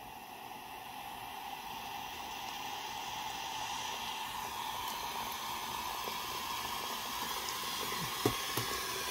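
Breville Wake Cup VCF042 teasmade brewing: a stream of hot water running from its spout into a ceramic mug, a steady hiss that grows slowly louder. Near the end come a couple of short knocks as a second mug is set down on the drip tray.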